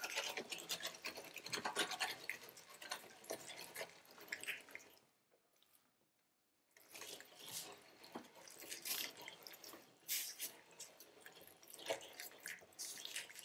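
Hand-cranked Tre Spade No. 22 meat mincer grinding meat and fat through a 10 mm plate: a continuous run of wet squelching and crackling clicks as the meat is forced through. The sound cuts out completely for about a second and a half in the middle, then resumes.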